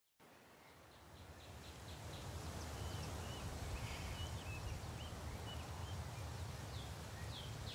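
Outdoor ambience fading in: a low rumble of wind on the microphone with birds chirping, and near the end a quick run of repeated high calls, about four a second.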